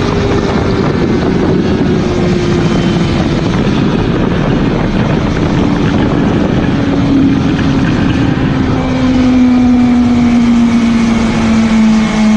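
BMW S1000RR's 999 cc inline-four engine note falling steadily in pitch as the bike slows from about 290 to under 160 km/h, under a heavy rush of wind.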